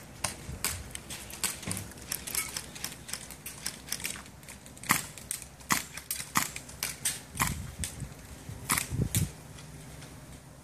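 Airsoft guns firing in a skirmish: sharp, irregular pops and clicks, single shots and short strings, some nearer and louder than others.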